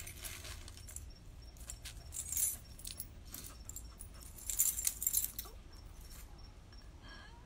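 Light metallic jingling in two short bursts, about two seconds in and again about four and a half seconds in, like keys or small metal tags shaken together.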